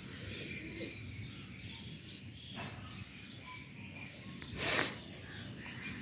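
Faint bird chirps over outdoor background noise, with a short whoosh of noise just before five seconds in.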